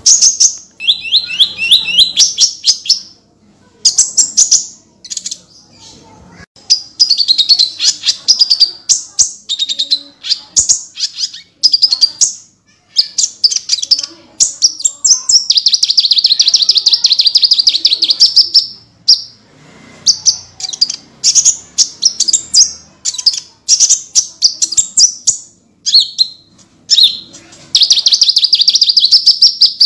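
Konin (kolibri ninja, a small sunbird) singing in loud, rapid, high trilled phrases, one after another with brief pauses between them. The longest runs come about halfway through and again near the end. This is the nonstop "gacor" song full of "tembakan" (fast rattling bursts) used to train caged birds.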